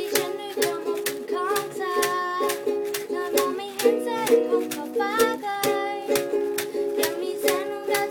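Instrumental break in a song: a plucked string instrument strummed in a steady rhythm, with a melody line over it and a chord held for about a second and a half near the middle.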